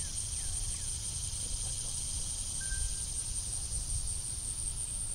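Steady high-pitched drone of insects in the trees, over a low rumble. A few short falling chirps come in the first second.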